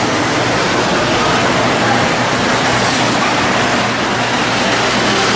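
Steady rushing din of a busy hall around a running O gauge model train layout, with a faint low hum underneath.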